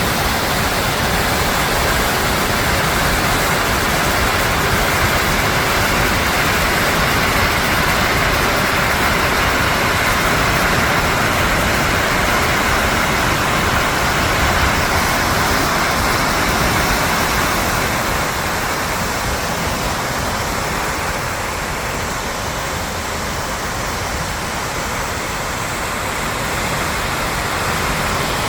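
Waterfall's steady rush of falling water, dipping slightly about two-thirds of the way through.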